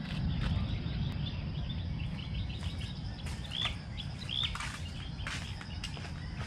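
Birds chirping and calling in quick short notes, with two louder arching calls about halfway through, over a low steady rumble.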